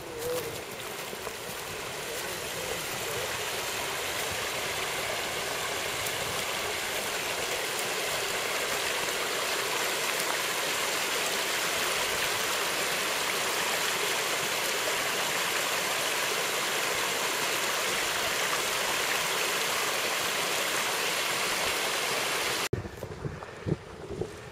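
Small mountain creek splashing and gurgling over rocks in a steady rush of water, growing louder over the first few seconds. It cuts off suddenly near the end, leaving a few low thumps.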